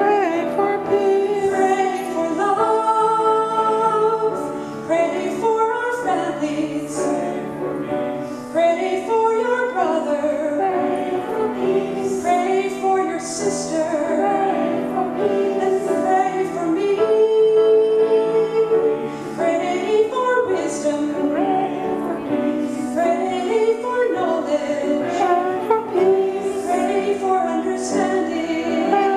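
Women's chancel choir singing a slow hymn together, with long held notes.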